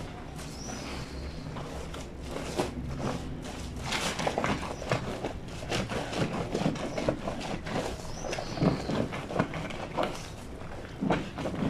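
A heavy wet blanket being hand-washed on a granite washboard sink: soapy fabric scrubbed and rubbed against the ridged stone, with irregular swishes and dull slaps.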